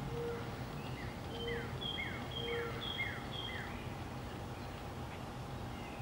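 A small songbird singing a quick series of about five phrases, each a short high note paired with a falling slur, with three short low notes among them. Under it lies steady low background noise and a faint hum.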